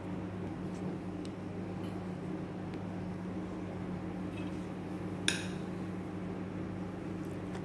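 Steady low mechanical hum, with one sharp clink about five seconds in and a few faint ticks.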